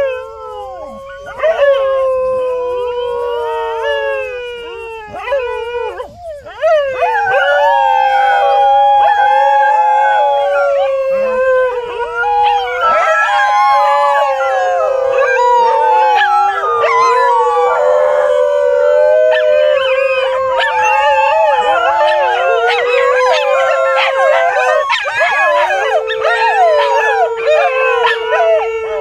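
A pack of Indian pariah (desi) dogs howling in chorus: several long, overlapping howls that rise and fall in pitch. The chorus swells louder a few seconds in and holds.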